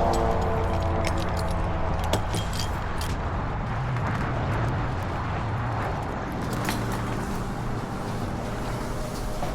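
A vehicle engine idling steadily, with scattered sharp clicks and knocks over it.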